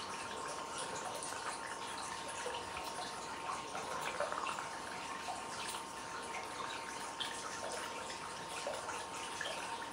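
Hot-spring water trickling and dripping into an open-air bath, a steady stream of small drips and splashes with no single loud event.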